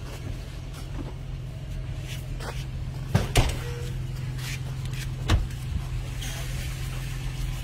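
A vehicle engine idling steadily, with a few sharp knocks about three seconds in and again a little past five seconds.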